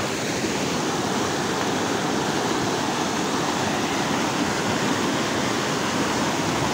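Mountain river rapids rushing over and between boulders: a steady, unbroken rush of white water.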